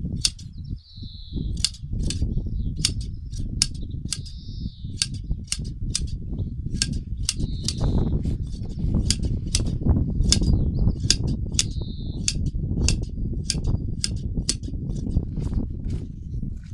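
Hand sheep shears snipping through a sheep's fleece: sharp metallic clicks of the blades closing, about two a second, over a steady low rumble.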